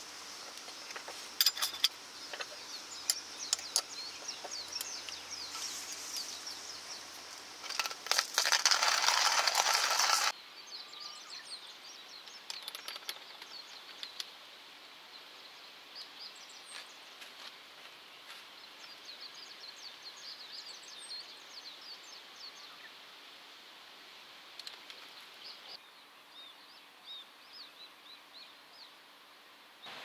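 Small wood fire crackling in a camp stove, with a louder rushing hiss for about two seconds that cuts off abruptly. Then quieter outdoor air with birds chirping.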